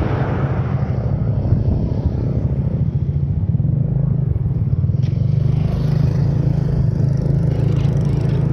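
Motorcycle engine running steadily at cruising speed, with wind and road rumble on the microphone as the bike rides along.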